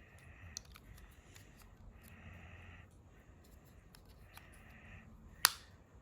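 Light handling clicks of the AirPods Pro 2 MagSafe charging case, with one sharp, loud click about five and a half seconds in. A faint buzzy tone comes and goes in the background every couple of seconds.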